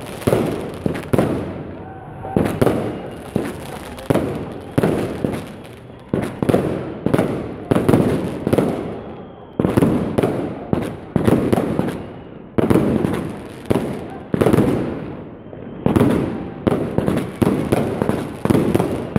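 Aerial fireworks bursting overhead in a continuous, irregular barrage: sharp bangs one to three a second, each followed by a fading echo.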